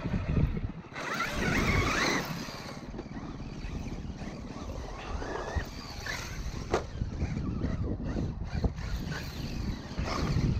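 Traxxas E-Revo 2.0 brushless RC truck running over wet sand, its motor whining with a rush of tyre and sand noise that is loudest about one to two seconds in.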